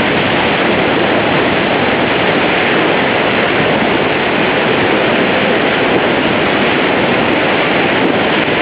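Steady roar of Niagara Falls and the churning water below it, heard from a tour boat in the spray.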